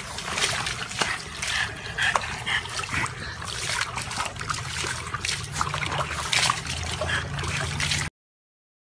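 Water splashing and sloshing in a plastic tub as a dog sitting in it moves about, in quick irregular splashes. It cuts off suddenly about eight seconds in.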